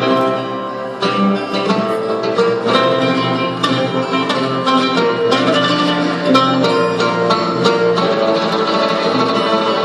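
Instrumental music led by plucked string notes, the backing track played before the song.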